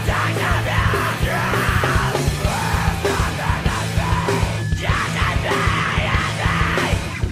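Loud, heavy, aggressive rock song with yelled vocals over a full band and pounding drums.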